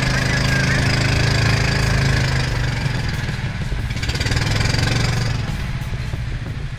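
Small engine of a motorized outrigger boat running steadily at low speed, an even, rapid chugging hum, easing off slightly after about five seconds.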